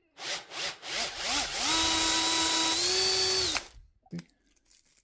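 Cordless drill boring a hole through an RC boat motor's water-cooling jacket: a few short spin-ups, then about two seconds at steady speed, rising slightly in pitch before it stops sharply. A single brief click follows.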